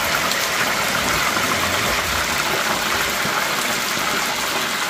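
Hot oil bubbling and sizzling steadily in an electric deep fryer as a basket of chicken wings fries.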